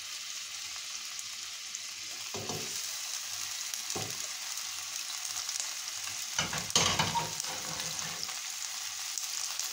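Sliced onion and green pepper sizzling steadily in hot oil in a stainless steel pot, with a few short knocks, the loudest about seven seconds in.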